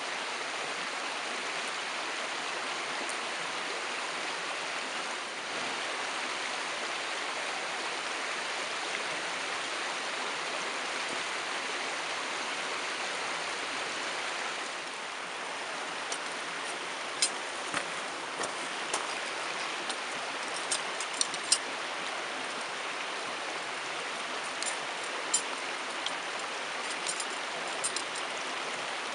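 Steady rushing of a mountain stream. About halfway through, a scattering of short, sharp clicks and snaps starts over the water sound.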